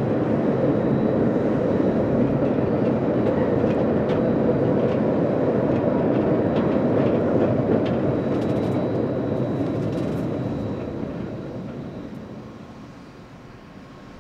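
Rail-Veyor train of electrically driven two-wheeled ore cars rolling along its light-rail track: a steady rumble with a few light clanks, fading over the last few seconds.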